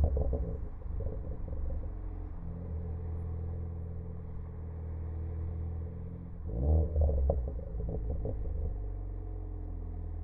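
Ford Focus ST engine and exhaust crackling and popping as the revs fall right at the start, then running steadily; about six and a half seconds in a quick rev rise is followed by another burst of crackles for about two seconds as the revs drop back. The crackles come from an aggressive pops-and-crackles tune setting.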